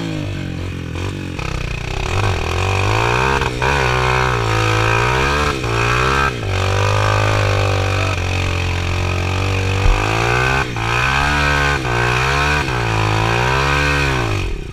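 Kawasaki KLX 150BF dirt bike's single-cylinder four-stroke engine revving up and down in repeated surges, the throttle worked in bursts on a steep, muddy, rutted climb. A single knock sounds about two-thirds of the way through.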